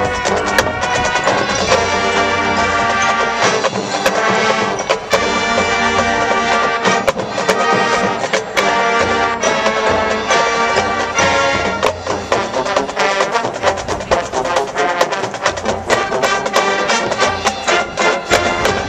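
Marching band playing: brass holding and changing chords over drums and percussion, with sharp percussion hits coming thick and fast in the second half.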